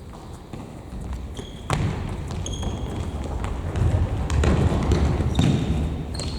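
Indoor futsal play: the ball being kicked with sharp thuds a few times, sneakers squeaking briefly on the gym floor, and players running.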